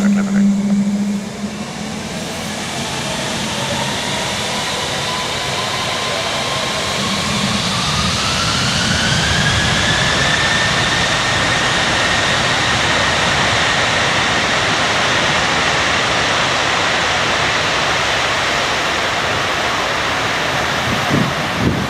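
Jet airliner's engines spooling up toward takeoff power: a broad rush that builds over the first few seconds, with an engine whine that rises in pitch about eight seconds in and then holds steady.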